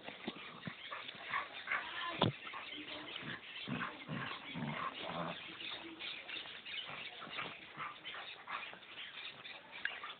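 Two dogs play-fighting, with short bursts of dog vocalising throughout and a sharp knock a little over two seconds in.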